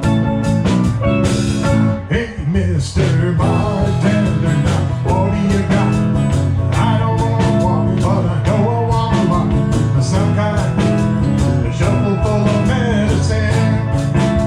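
Live band music: electric guitar, bass guitar, drum kit and steel drums playing a steady groove, briefly thinning about two seconds in before the full band comes back.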